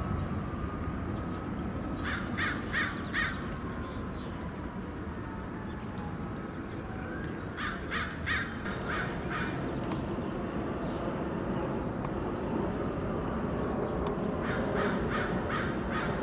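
A crow cawing in three runs of four to six quick caws, a few seconds apart, over a steady low background rumble.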